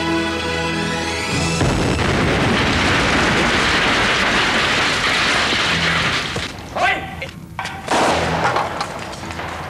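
Theme music rises and ends about a second and a half in, cut off by a loud explosion blast that rumbles on for about five seconds. A couple of sharp thuds follow near the end.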